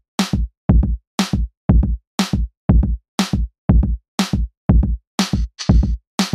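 Electronic background music: a drum-machine beat of deep kick hits and sharp, crisp strikes, about two beats a second, with a hissy cymbal-like wash joining near the end.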